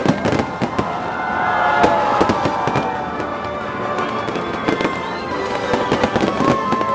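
Dense barrage of aerial firework shells bursting overhead: a rapid, continuous run of bangs and crackles, with held and gliding tones running underneath.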